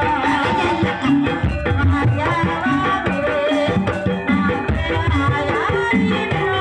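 Live Javanese ebeg dance music: a gamelan-style campursari ensemble playing steadily, with hand-drum strokes under sustained pitched melody notes.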